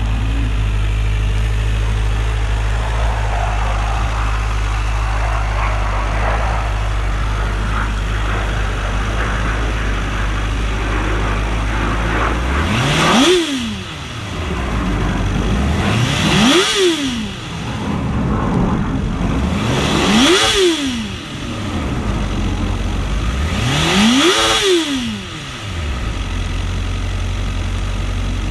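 2009 Honda CBR1000RR's inline-four engine idling steadily, then revved in four quick throttle blips about four seconds apart, each rising and falling sharply in pitch before dropping back to idle.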